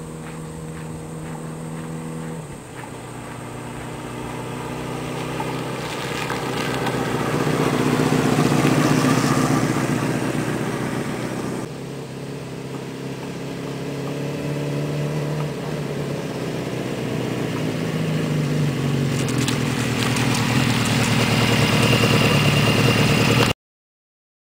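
1980 Honda CB650 chopper's inline-four engine idling steadily for a couple of seconds, then the bike pulls away and its engine grows louder. About halfway through the sound drops back, then the motorcycle's engine grows louder again until it cuts off suddenly near the end.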